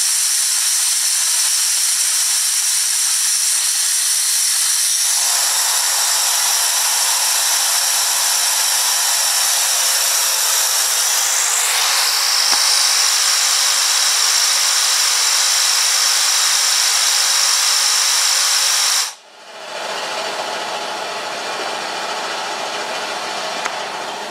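Compressed air jetting from a nozzle through a venturi onto a small fan driving a DC motor: a loud, steady hiss with whistling tones. Near the middle a tone sweeps up in pitch, and about three-quarters through the hiss drops abruptly and carries on lower and duller.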